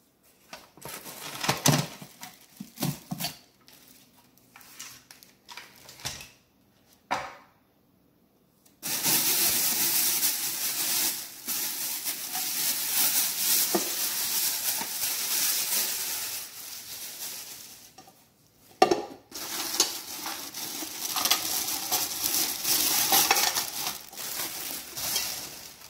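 Knocks and clicks of a new Instant Pot's lid and parts being handled, then a long stretch of a plastic bag crinkling as the bagged accessories are lifted out of the pot, broken by one sharp clack a little past halfway.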